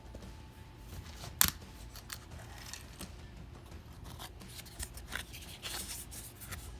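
Cardboard box and packaging being opened and handled: one sharp click about a second and a half in, then scattered small clicks and rustling, busiest near the end.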